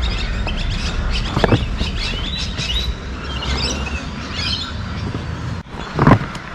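Small birds chirping, several short chirps over a low steady rumble. A brief knock comes about a second and a half in, and a louder thump near the end.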